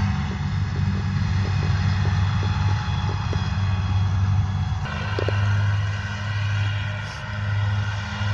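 Krone Big M 450 self-propelled mower running steadily under load while cutting a heavy crop of grass, a deep engine drone with the mower units working. The tone shifts abruptly about five seconds in.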